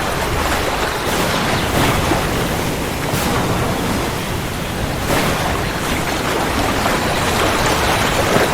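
Steady heavy rain, a dense even hiss with faint crackles of drops spread through it.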